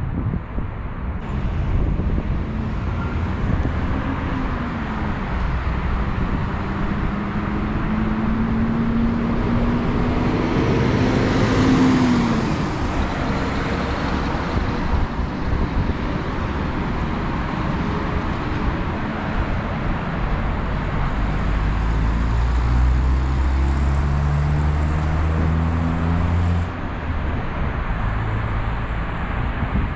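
Road traffic noise from motor vehicles. One engine's note rises steadily for several seconds and drops off about halfway through, and deeper engine tones come in near the end.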